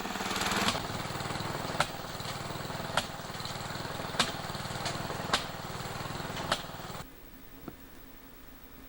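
A small engine running steadily, with a sharp knock about every second and a quarter. The engine eases off slightly under a second in and stops about seven seconds in.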